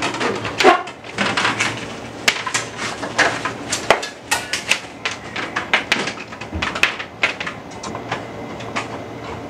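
Flexible corrugated plastic (CD) conduit being fed up into a ceiling space, rattling and scraping in a rapid, irregular string of clicks and knocks.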